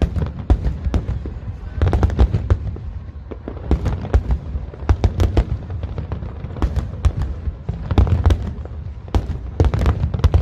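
Aerial fireworks display: clusters of sharp, crackling bangs every second or two over a continuous low rumble of booms.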